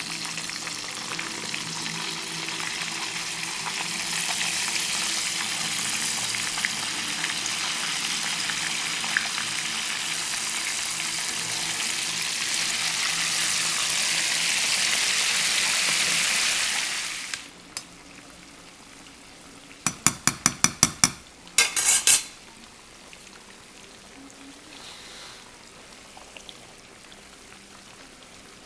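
Sliced potatoes deep-frying in hot canola oil: a loud, steady sizzle that drops off suddenly about two-thirds of the way through to a much fainter bubbling. A few seconds later comes a quick run of about eight sharp clicks.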